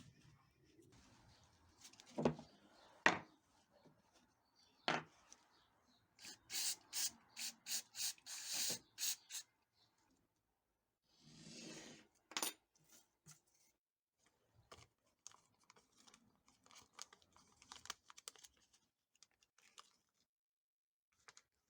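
Workbench handling of small parts: a few sharp knocks, then a quick run of about nine short, sharp strokes at roughly three a second, followed by scattered light clicks.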